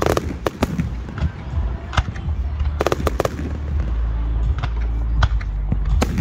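Aerial fireworks display: shells bursting in a rapid, irregular string of sharp bangs and crackles over a continuous deep rumble, with the rumble heaviest in the second half.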